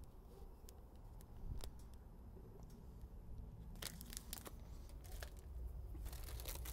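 Faint crinkling and tearing of a chocolate bar wrapper and food packaging being handled, in scattered small clicks that grow busier about four seconds in and again near the end.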